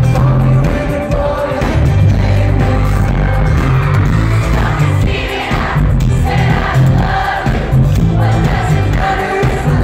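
Live pop-rock band playing loud, with heavy bass and drums, while the lead singer sings into a microphone.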